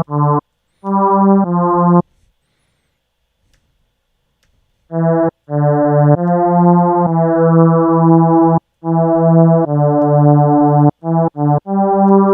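Harmor software synthesizer playing a filtered saw-wave patch with unison, heard as a run of pitched notes. A few short notes, a pause of about three seconds, then longer held notes and quicker short ones near the end.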